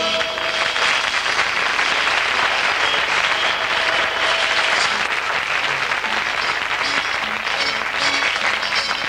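Audience applauding in a theatre, a steady dense clatter of clapping, with music playing quietly underneath.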